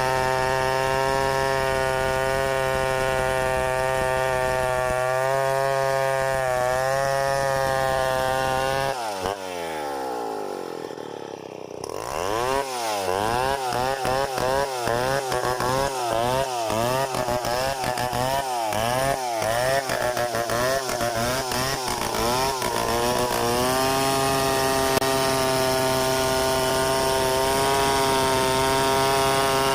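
Large two-stroke chainsaw running flat out at a steady high pitch, then dropping sharply as the throttle is released about nine seconds in. After a brief low spell it is revved up and down rapidly and repeatedly for about ten seconds, then held steady at full throttle again.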